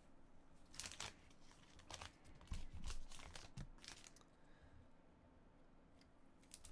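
Foil trading-card packs crinkling as they are picked up and handled, in scattered short rustles and clicks that grow fainter over the last two seconds.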